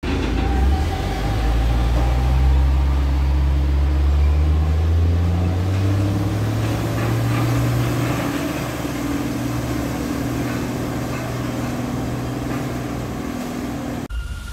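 Heavy diesel truck engine running with a deep hum that climbs a little in pitch over the first few seconds, then eases and fades past the middle.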